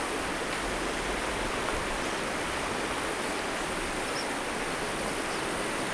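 A rocky mountain river's current rushing steadily over stones, an even, unbroken hiss.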